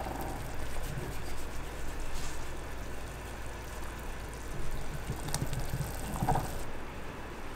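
Water boiling in a stainless steel saucepan on a gas stove: a steady bubbling hiss.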